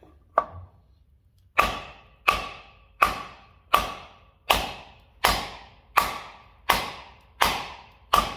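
Hammer blows on a wooden 2x4 block, driving an aluminum traction-bar bushing into a leaf spring eye: one blow, then ten steady blows about one every three-quarters of a second, each ringing briefly.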